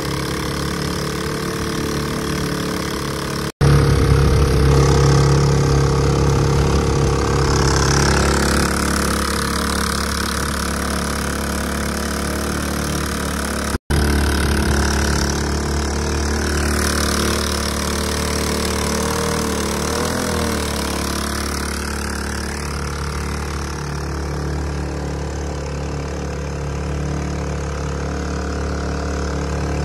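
Small single-cylinder GX200-clone engine on a longtail surface-drive boat motor, running steadily. The sound cuts out for an instant twice, about four and about fourteen seconds in, coming back louder each time.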